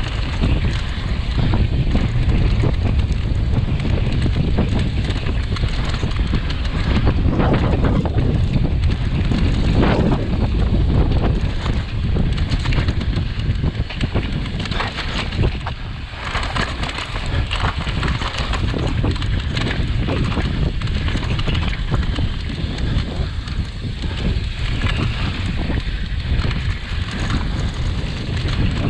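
Wind buffeting the microphone of a camera on a mountain bike riding fast down a dirt and gravel trail, with tyre rumble and the knocks and rattles of the bike over bumps.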